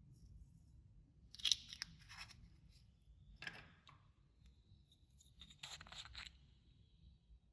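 Clear slime being worked by hand, crackling and popping as it is pulled and folded, in three short bursts.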